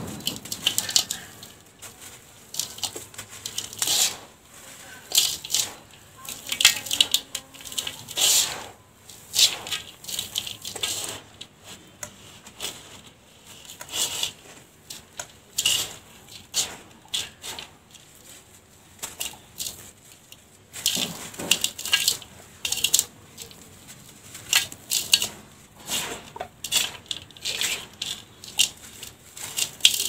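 Lumps of dry, gritty dirt crumbled and squeezed by gloved hands, the powder and grit sifting down onto a heap in a steel tub. It makes irregular crunching and crackling with a sandy hiss of falling grains, quieter for a few seconds past the middle.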